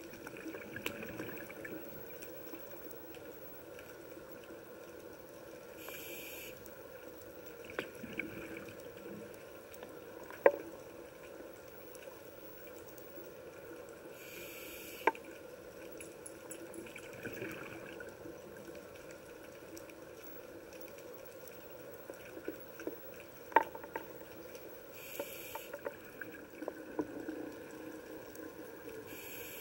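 Underwater reef ambience: a steady low wash with scattered sharp clicks, and a short hiss three times, about every ten seconds, typical of a scuba diver's regulator on each breath in.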